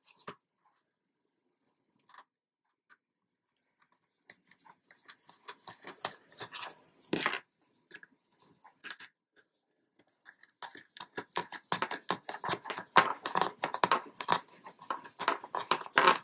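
Fingers twisting metal screw-post tops onto a post-bound album's posts to tighten them: quiet for the first few seconds, then rapid light scratching and clicking of fingertips and screw caps against the card cover, growing busier over the last six seconds.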